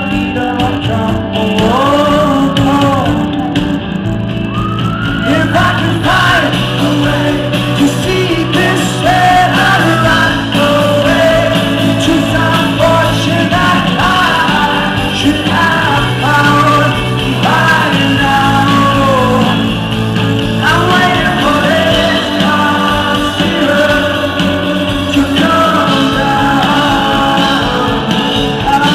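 A rock band playing live, with a male lead singer's voice over the band.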